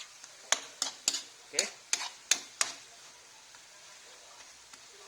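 A utensil stirring beef and garlic in a frying pan, with about seven short scrapes and knocks against the pan in the first three seconds, over a faint steady sizzle of frying.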